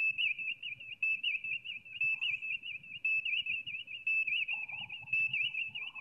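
Star Trek original-series bridge background sound effect playing on the replica bridge set: a steady, high electronic warbling tone with a short beep about once a second, over a low hum.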